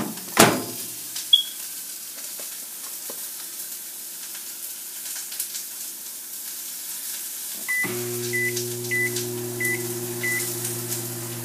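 Microwave oven door shut with a sharp bang, then a short high beep. About eight seconds in, five keypad beeps a little over half a second apart as more cooking time is entered, and the oven starts up with a steady hum at the first press. Mushrooms sizzle faintly in a frying pan throughout.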